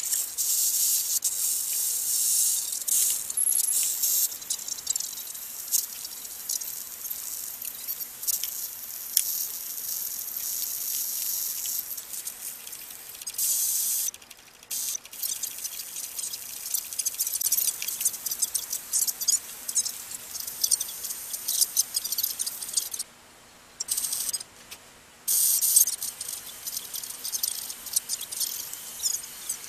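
Static hiss and crackle from a handheld radio with its squelch open. It cuts out briefly three times in the second half.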